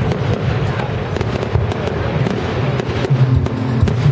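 Fireworks display: aerial shells bursting in quick succession, many sharp cracks and crackle over a steady low rumble of explosions.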